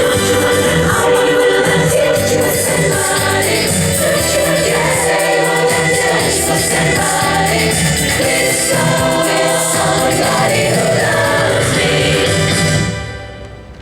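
Music with a choir singing, gospel in style, fading out near the end.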